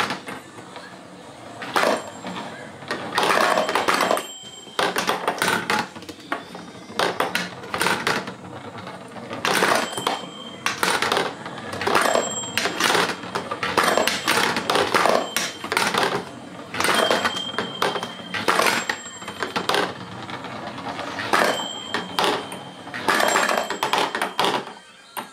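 Kumon Kuru Kuru Chime toy at work: plastic balls clattering in quick runs of clicks down its track, and a chime ringing a short bright tone again and again, every second or two. A low steady hum from the toy's electric motor runs beneath and stops near the end.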